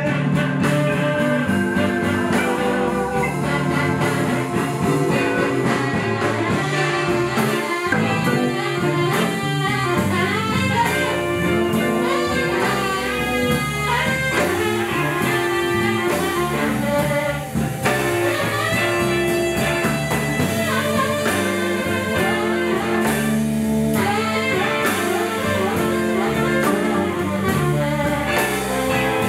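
Live blues band playing a vintage-style jump blues number.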